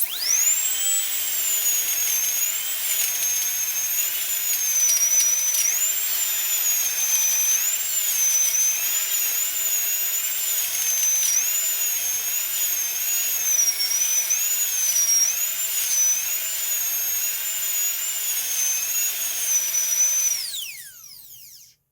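High-speed rotary drill whining at a high pitch. The pitch dips and recovers repeatedly as it bites under load, then falls away as the motor winds down near the end.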